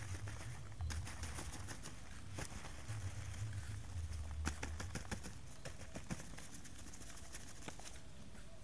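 Light irregular tapping, rustling and pattering as a cloth kroto scoop bag on a bamboo pole is shaken and tapped out, weaver-ant larvae and pupae dropping onto a large leaf, with a low rumble underneath.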